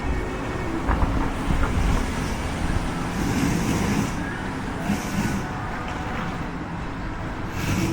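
City street traffic: a steady rumble of motor vehicles going by, with a few passing swooshes about three, five and seven and a half seconds in.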